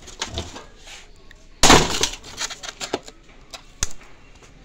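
Handling knocks and clicks from a demolition hammer being moved about in its hard carry case: one loud knock about one and a half seconds in, a few lighter taps, and a sharp click near the end. The hammer's motor is not running.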